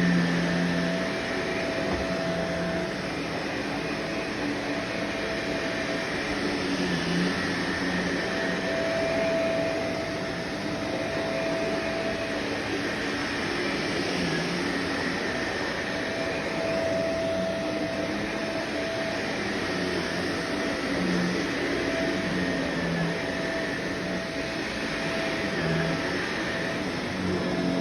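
Vacuum cleaner running steadily, with a whine that fades in and out over its motor noise.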